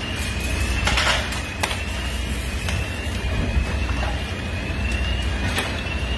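Fire engines running at a building fire, a steady low engine rumble. Over it a faint high tone rises and resets about every second and a half, and a few sharp cracks come through.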